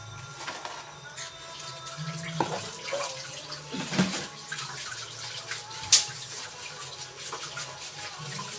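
Water running and splashing at a kitchen sink, with scattered knocks and clinks of utensils or dishes and one sharp clack about six seconds in.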